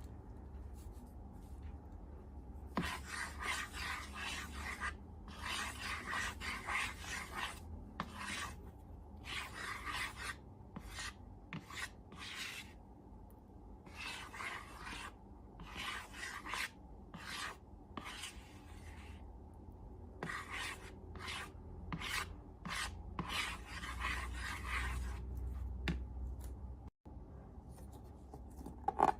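Hands rubbing and squishing slime and balloons in a long run of irregular rasping strokes, each under a second, with a couple of short quieter pauses, over a faint low hum.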